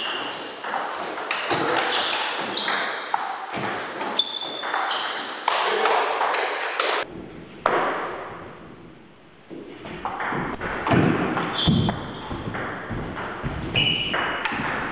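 Table tennis rallies: the celluloid ball clicking sharply off bats and the table in quick succession, with brief pinging rings, in a reverberant hall. There is a lull between points about eight seconds in, and a new rally starts about ten seconds in.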